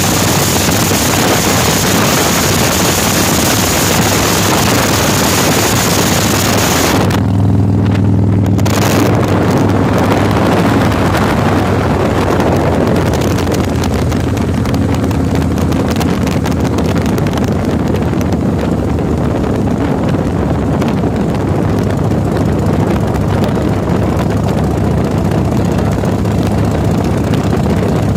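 Motorcycle engine running steadily under way, under heavy wind rushing over the microphone. About seven seconds in the wind noise drops off sharply and the engine's low steady note comes forward.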